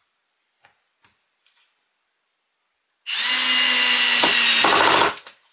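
Cordless drill-driver, set to screwdriver mode, driving a screw through a wooden batten into a bamboo panel. About three seconds in its motor starts a steady whine, which breaks into a rapid chatter just before it stops, some two seconds later.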